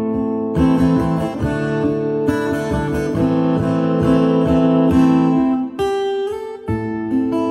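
Acoustic guitar music playing through an Electro-Voice Everse 12 portable speaker in a sound test. The notes are plucked and strummed, with a short drop in level about six seconds in before the playing picks up again.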